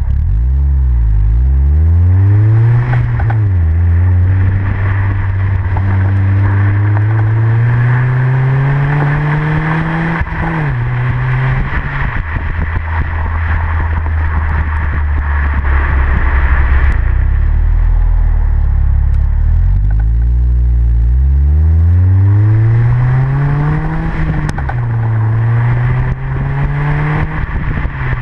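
Exhaust note of a 2005 Honda Civic Si's 2.0-litre four-cylinder through a Tanabe Medallion cat-back, heard at the tailpipe while accelerating. The pitch rises through the revs with upshifts about 3 and 10 seconds in, holds steady at cruise, then climbs again from about 20 seconds with further shifts near 24 seconds and at the very end. Wind and road noise run underneath.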